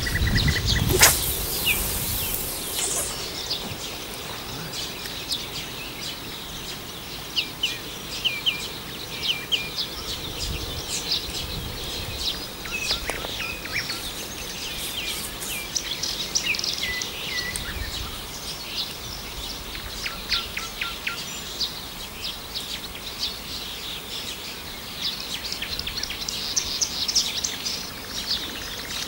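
Songbirds chirping and calling, many short high notes throughout. About a second in there is a brief rushing whoosh, fitting a feeder rod being cast.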